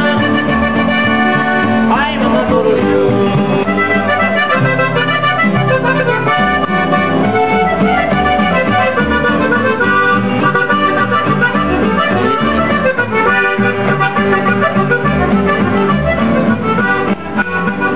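Piano accordion playing a melody, with acoustic guitar accompaniment.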